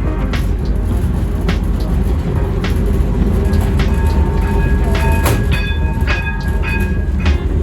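Small amusement-park ride train rolling along its track: a steady low rumble with irregular clicks of the wheels over the rail joints.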